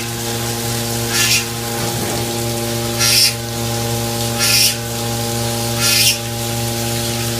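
Niigata SPN50 CNC horizontal machining center running with a steady hum made of several fixed tones. Four short hisses come at even intervals, about every one and a half seconds.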